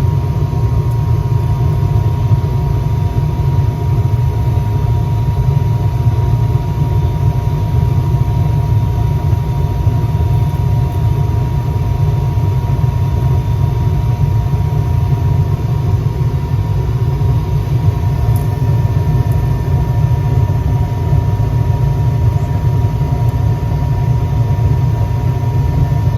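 Gas furnace running with a loud, steady rumble and a thin steady whine over it. This is the loud noise the customer complained of, which the technician puts down to either the blower motor or the inducer motor.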